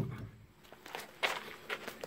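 A few soft knocks and rustles, about four in the space of a second, as someone shifts about and moves inside a truck-bed cap.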